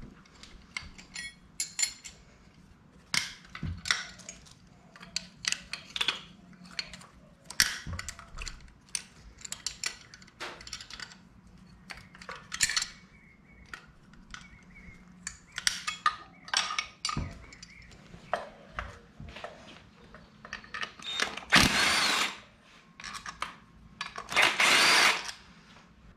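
A hand ratchet wrench clicks in quick, irregular runs as the intake runner's 12 mm bolts and nuts are backed off. Near the end come two bursts of a power tool, each about a second long, which are the loudest sounds.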